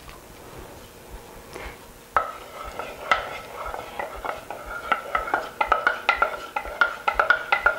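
Wooden spoon stirring water, oil and food colouring in a plastic mixing bowl, knocking and scraping against the bowl in quick repeated clicks with a slight ring. The clicks start about two seconds in.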